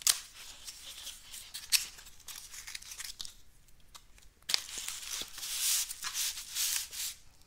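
A small cardboard box sealed with packing tape being pulled open by hand. A couple of sharp clicks come in the first two seconds, then tape and cardboard tear and rustle from about halfway through until shortly before the end.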